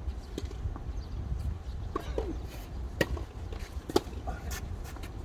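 Tennis ball struck by racquets during a doubles rally: two sharp hits about a second apart, the first about three seconds in, with lighter knocks of ball bounces and footsteps around them, over a low steady rumble.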